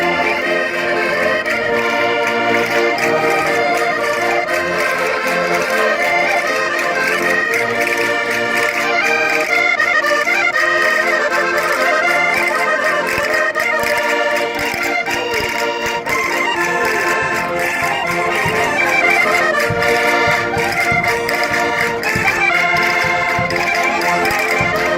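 Portuguese concertinas (diatonic button accordions) playing a fast, lively Minho folk dance tune, with quick runs of notes over a steady bass. Low thuds join in during the last few seconds.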